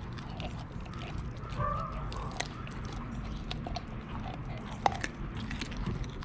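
A Lycan Shepherd puppy chewing a whole raw fish, with irregular wet crunches and clicks as it bites through flesh and bone, the sharpest crack about five seconds in.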